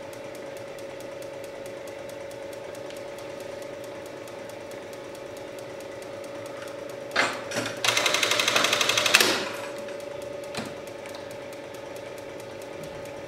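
Industrial button sewing machine with its motor humming steadily. About seven seconds in it clunks into its cycle, runs a rapid burst of stitches for about a second and a half, and stops with a click.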